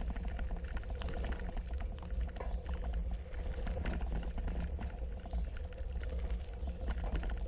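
Bicycle rolling along a gravel trail: tyres crunching over loose grit with irregular rattling clicks, over a steady low rumble.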